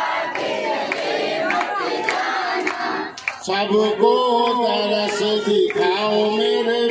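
A crowd singing and chanting together, with sharp hand claps at a steady beat; a long steady held note comes in about halfway through.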